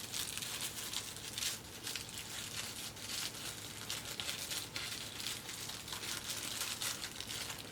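Wrapping paper crinkling and tearing as a small packet is unwrapped by hand, in a string of short rustles.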